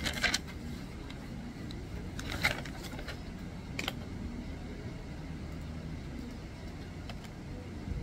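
Pages of a thick paper logbook being flipped and turned by hand: three short papery rustles in the first four seconds, over a steady low hum.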